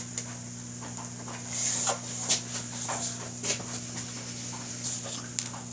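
Faint handling noises, short rustles and light knocks, over a steady low electrical hum.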